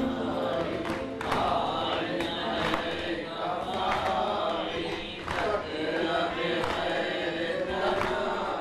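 A group of men and women chanting a devotional recitation together, with voices held and bending in pitch as in a chanted melody.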